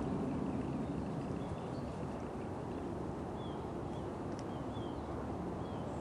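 A steady low rumble, with a few faint, short bird chirps in the middle.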